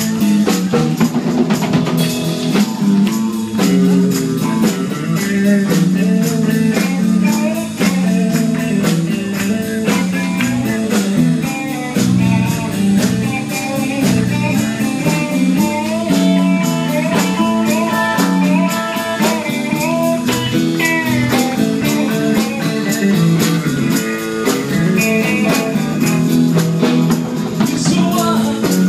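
Live band playing a bluesy song: electric guitars, bass guitar and a drum kit keeping a steady beat, with some singing.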